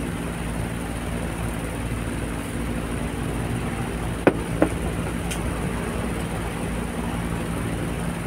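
Screwdriver and metal parts of an electric fan motor give two sharp clicks about halfway through, a fraction of a second apart, as screws are driven into the motor frame. Under them runs a steady rumbling background with a low hum.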